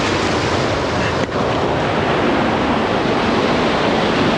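Water rushing down a stepped waterfall, a loud steady roar of cascading water, with a brief dip about a second in.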